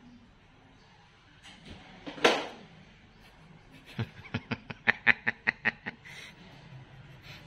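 A person snickering: a quick run of about ten short laughing pulses, five or six a second, about halfway through. It is preceded by one short, loud hissing burst about two seconds in.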